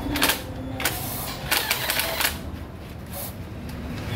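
Aerosol can of brake cleaner sprayed through its extension straw into the engine block's head-bolt holes, in several short hissing bursts, the longest cluster midway.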